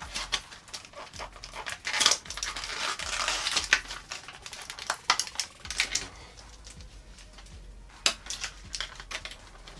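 Hands handling an action figure's plastic packaging insert: crinkling and clicking of plastic, busiest in the first six seconds, then quieter with one sharp click about eight seconds in.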